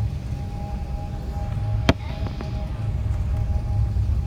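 Cabin noise of an Airbus airliner on the ground: a steady low rumble with a faint steady hum-tone over it. There is one sharp click about two seconds in.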